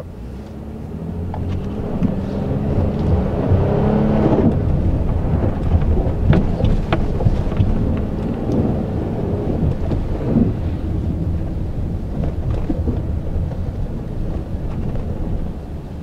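Inside the cab of a 2017 Honda Ridgeline pulling away on a snow-covered road: the 3.5-litre V6 climbs in pitch and loudness over the first few seconds, then settles into a steady run. Under it is a continuous low rumble of tyres in deep snow, with a few sharp clicks.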